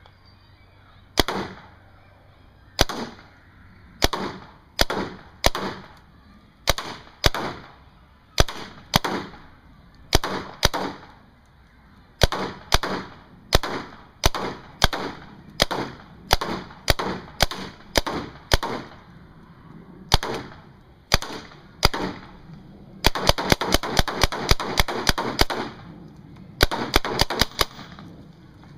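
Tippmann 98 Custom semi-automatic paintball marker firing single shots about a second apart, then a rapid string of shots late on, followed by a few more single shots.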